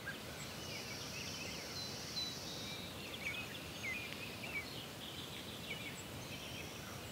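Faint outdoor ambience: small birds chirping with short calls, now and then a thin high trill, over a steady hiss.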